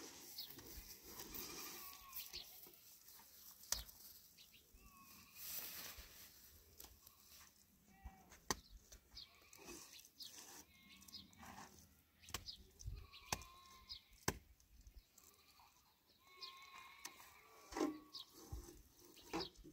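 Faint livestock bleating in short calls here and there, with a few sharp knocks in between.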